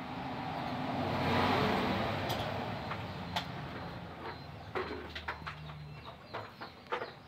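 A motor vehicle passing by: its engine noise swells to a peak about a second and a half in, then fades away over several seconds. Light clicks and knocks follow near the end.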